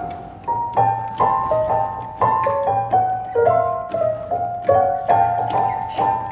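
Solo piano music: a slow melody of single struck notes, about two or three a second, each ringing and dying away over a low bass note.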